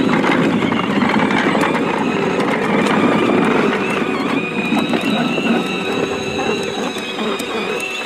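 Battery-powered ride-on toy bulldozer driving along: its plastic tracks and geared drive rattle and clatter continuously, with a steady high electric-motor whine.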